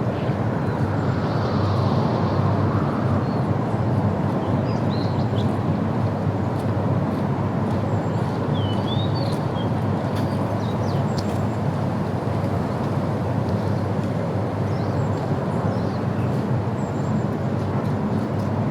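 Outdoor ambience: a steady low rumble, with a few short bird chirps over it.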